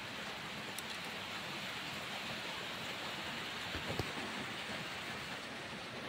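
Steady rain falling, an even hiss throughout, with a couple of short low knocks about four seconds in.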